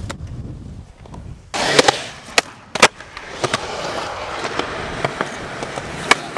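Skateboard wheels rolling on concrete, with several sharp clacks of the board striking the ground about two to three seconds in and another near the end.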